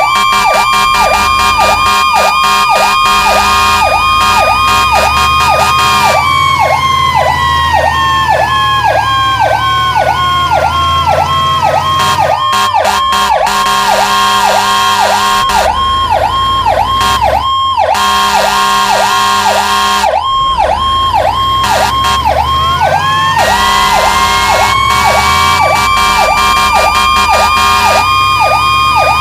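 Fire truck sirens on an emergency response: a fast, continuous yelping warble together with a second siren holding a steady high wail. The wail falls away slowly from about six seconds in and winds back up after about twenty-two seconds.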